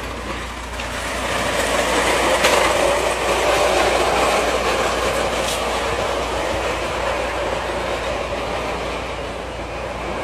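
Plastic beer crates loaded with glass bottles sliding down a steep ribbed concrete slope: a continuous scraping, rattling rumble that builds over the first couple of seconds, is loudest a few seconds in with a couple of sharp clacks, then slowly fades as the crates slide away.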